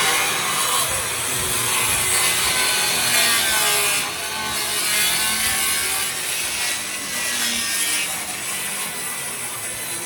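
A saw cutting through plywood with a steady, continuous rasping, stopping near the end.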